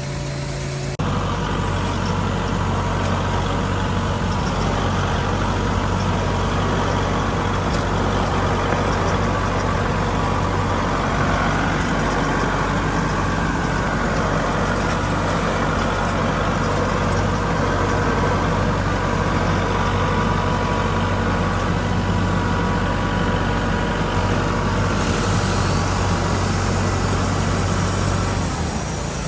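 Wood-Mizer LT40 band sawmill cutting a board from a knotty log: the engine runs under load beneath the steady hiss of the band blade through the wood. The cut starts about a second in and eases off near the end, leaving the engine running on.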